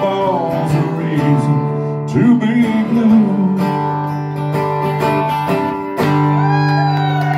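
Two acoustic guitars strumming and picking the closing bars of a country song, with a man's voice drawing out a sung line. About six seconds in a final chord is strummed and left ringing.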